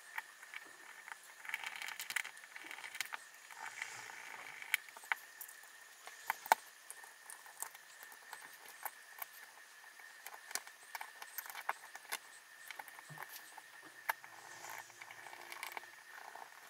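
Faint, scattered small clicks and light handling noises as the screws and side cover of a Penn Warfare 20LW level-wind fishing reel are picked up and fitted back together, over a faint steady high hum.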